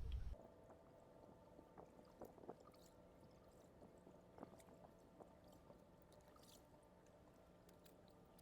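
Near silence after a low rumble cuts off abruptly at the start, with faint steady tones and a few soft ticks.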